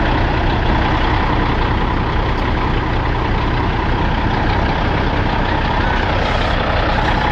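Heavy truck's diesel engine running steadily, with a steady tone over it.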